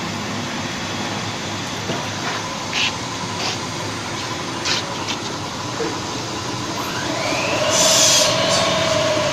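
Electric chili-grinding mill with a Hitachi motor running steadily, grinding soaked whole chilies into wet paste, with a few short clicks. Near the end a whining tone rises and the noise gets louder.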